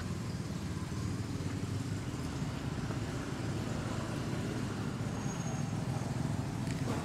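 Steady low rumble of a motor vehicle engine running, holding an even level without revving.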